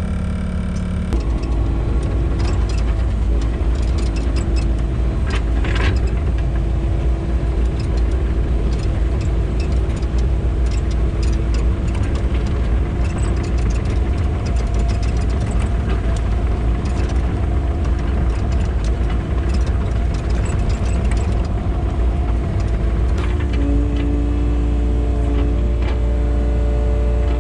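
Kubota KX080 excavator's diesel engine running steadily under load, working its hydraulics. It picks up about a second in and changes pitch near the end.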